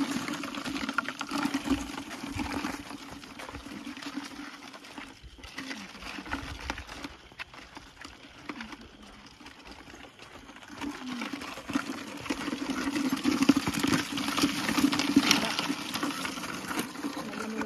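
Footsteps scuffing over wet sand and stones. Louder near the end, a small hand shovel scrapes and digs into the sand.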